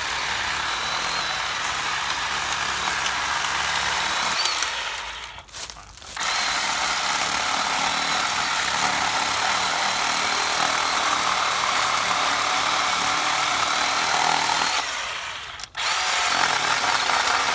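Black+Decker 20 V lithium battery chainsaw, cordless with a 10-inch bar, running with its electric motor whining and cutting through small branches. It runs in three long stretches, stopping briefly about five seconds in and again about two seconds before the end.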